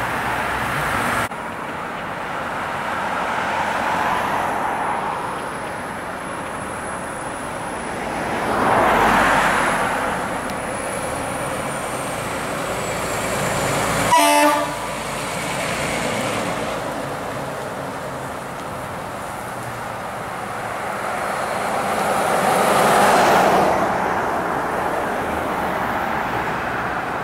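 Fire apparatus driving past, their noise swelling and fading twice, with one short air-horn blast about halfway through as the Seagrave tower ladder goes by.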